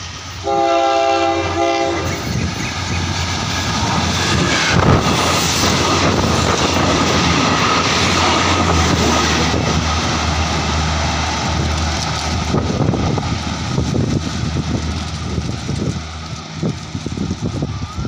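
A Thai diesel multiple-unit train of NKF and ATR railcars gives one horn blast about a second and a half long near the start, then runs through the station past the listener without stopping. The diesel engine hum and the rush of the passing cars build to a loud peak in the middle. In the later part the wheels click rhythmically over the rail joints as the last cars go by, and the sound fades away.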